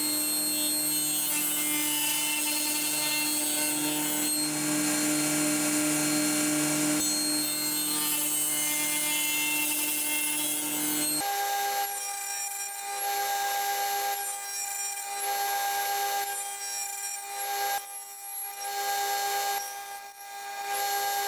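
Table saw running with its blade set shallow, cutting repeated passes through an MDF board to form a slot. The steady pitch shifts abruptly about halfway through, and in the second half the cutting noise rises and falls several times.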